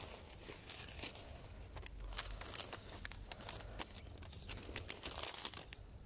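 Dry leaves and twigs crackling and crunching irregularly on dirt ground as someone moves across it with a bicycle, over a low steady rumble of wind on the microphone.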